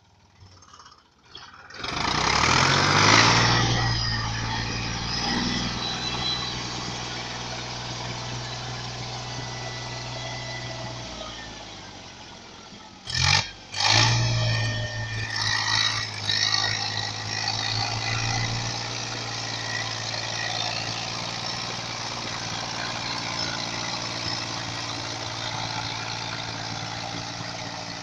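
Same Taurus 60 tractor's air-cooled diesel engine revving up and working under load, dragging a heavy log on a chain through mud. It eases off about halfway, a short loud burst follows, then it picks up and pulls on steadily.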